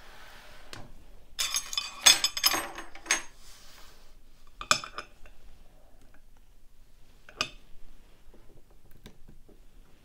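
Metallic clinks and rattles as a picked Yale euro profile cylinder is handled and taken out of a vise, a quick run of them in the first few seconds, then two single metal taps, the last as the cylinder is set down on a metal pinning tray.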